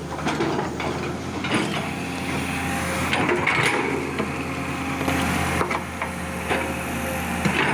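Excavator's diesel engine running steadily, with irregular knocks and clatter over it.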